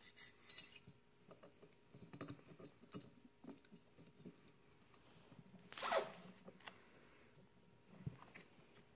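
Faint scraping, rubbing and small clicks of a motorcycle cylinder being worked down over an oiled piston and its rings, on a 1974 Yamaha RD200 two-stroke twin. About six seconds in there is one louder scrape with a short falling squeal.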